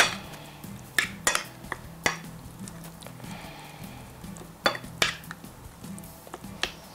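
A utensil clinking against a bowl while chicken pieces are mixed with yogurt and spice masala: sharp, irregular clinks with a soft stirring sound between them, bunched about a second in and again near five seconds.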